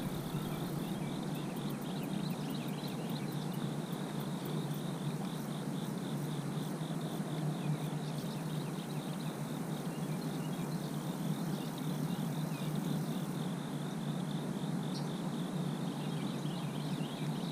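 Insects chirping in a steady, rapidly pulsing trill, over a steady low background rumble.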